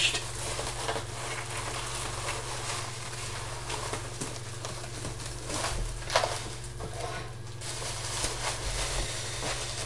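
A taped cardboard box being pulled open and handled: rustling, scraping and crackling of cardboard and packing tape, with a few sharper crackles about six seconds in and near the end, over a steady low hum.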